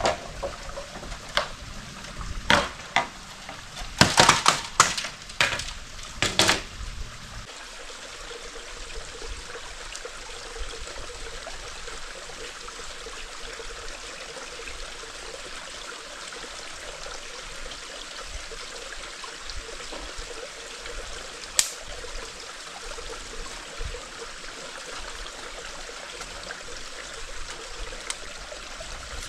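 Steady rush of running stream water, with a series of sharp knocks in the first several seconds and one more click later on.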